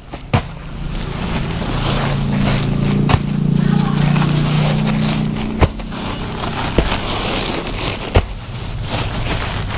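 Plastic sacks and plastic-wrapped packs of clothing rustling and crinkling as they are handled, with a few sharp clicks and knocks. A low drone swells and fades over the first half.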